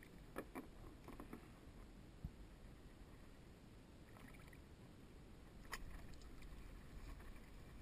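Faint water lapping against a kayak hull, with a few light clicks and taps.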